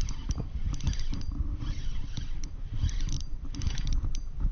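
Spinning reel being cranked to bring in a hooked bluegill, with irregular clicks and rattles from the reel over a low rumble.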